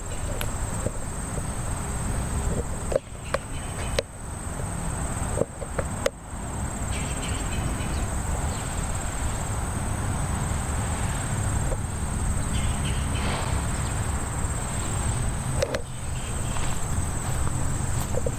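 Insects trilling steadily in a high, even drone, over a fluctuating low rumble on the microphone, with a few short knocks.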